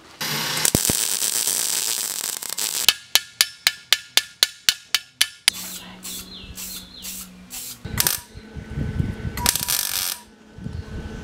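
Quick succession of metal-repair work sounds: a couple of seconds of steady hiss, then a run of sharp clicks about four a second for a few seconds, then shorter bursts of hiss and clatter near the end.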